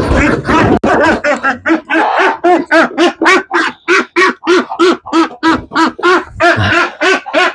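A duck quacking loudly and over and over, about three quacks a second, while it is being caught and handled. A jumbled burst of noise comes first, in the first second.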